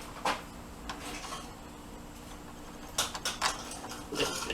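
A few light clicks and knocks from handling on a workbench: one about a quarter second in, then a small cluster about three seconds in, over a faint steady hum.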